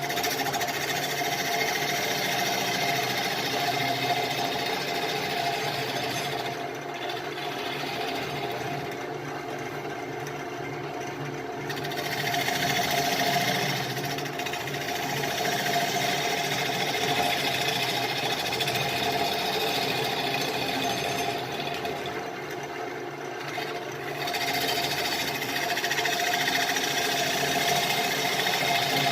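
Wood lathe running steadily while a gouge cuts the outside of a Russian olive bowl blank, the noise of the cut coming and going in passes. The cutting drops out twice, about a quarter of the way in and again near three-quarters, leaving only the lathe's motor hum.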